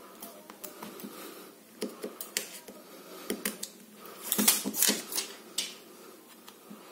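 Fingernails picking and scratching at the protective plastic film on the back of a smartphone around its camera, with scattered light clicks and a crinkling rustle as the film is peeled, busiest about four and a half seconds in.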